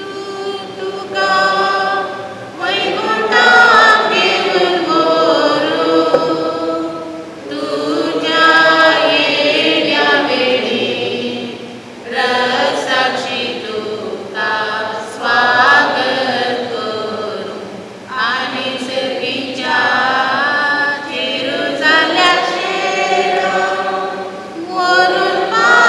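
A group of voices singing a funeral hymn together, in sung phrases of a few seconds with short breaks between them.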